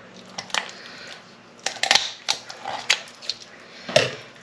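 Kitchen shears snipping through the backbone of a raw whole chicken: a series of sharp snips and crunches as the blades cut through bone, the loudest about two seconds in. Near the end the shears are set down on the worktop with a knock.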